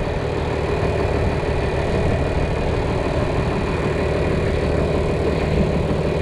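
Tractor engine idling steadily, a low even hum.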